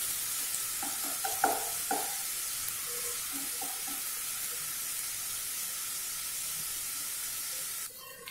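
Grated onion and crushed garlic sizzling steadily in oil in a nonstick kadhai over low heat, with a wooden spatula stirring and knocking softly against the pan a few times in the first two seconds. The sizzle cuts off sharply near the end.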